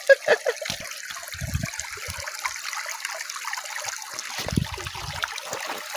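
River water flowing and trickling over stones, with two brief low rumbles, about one and a half and four and a half seconds in.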